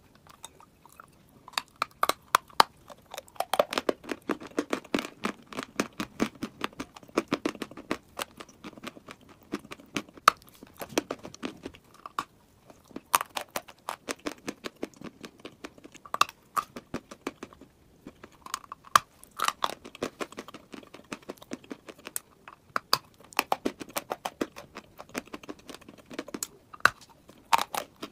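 A person biting and chewing a chunk of dry chalk: a dense run of crisp, dry crunches, with a few short pauses between bites.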